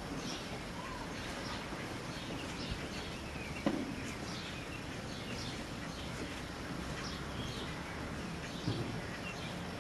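Small birds chirping over and over, short falling calls, above a steady outdoor background hiss, with one brief thump about three and a half seconds in.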